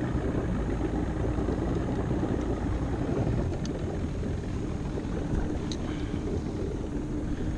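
A boat's outboard motor running steadily as the small boat moves along under way, with water noise from the hull.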